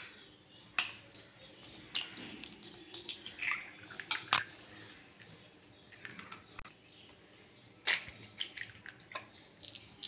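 Two eggs cracked one after the other into a bowl: sharp taps of shell against a hard edge, the strongest about a second in, around four seconds in and about eight seconds in, each followed by small clicks and crackles as the shell is pulled apart.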